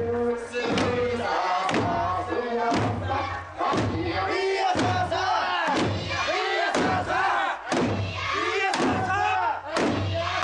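Eisa drummers striking hand-held drums together about once a second, with the troupe's chanted shouts rising and falling between the beats.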